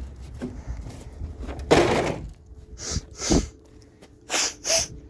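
A sick man coughing: a loud rough burst about two seconds in, then short coughs in pairs, twice.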